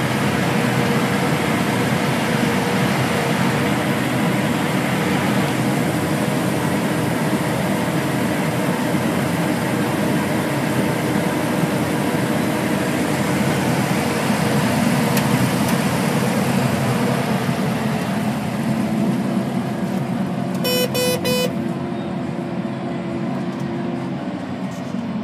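Steady engine and road noise of a vehicle being driven, with the engine note dropping lower in the last few seconds. About three-quarters of the way through, a quick run of three short beeps sounds.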